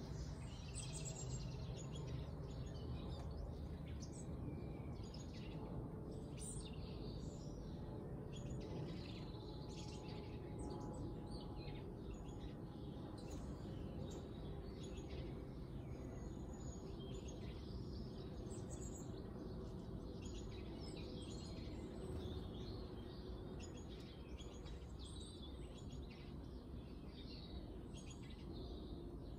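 Small birds chirping and calling in many short, scattered notes, over a steady low rumble of background noise.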